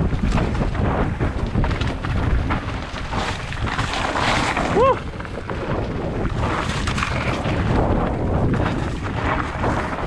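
Wind buffeting the microphone over the steady rumble and rattle of a mountain bike riding rough ground, with frequent small knocks. A brief squeak about halfway through.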